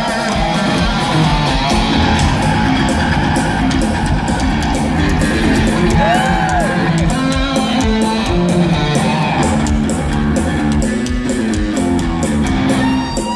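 Electric bass and electric guitar playing heavy metal live at loud volume, with stepping low bass notes and a few bent guitar notes that rise and fall. It is heard from within the audience.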